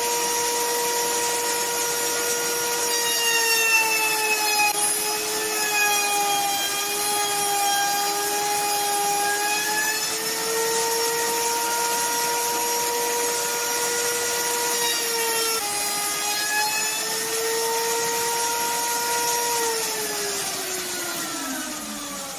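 Electric router running and cutting grooves in small hardwood strips. Its motor pitch sags twice as the bit takes load, then falls away near the end as it is switched off and spins down.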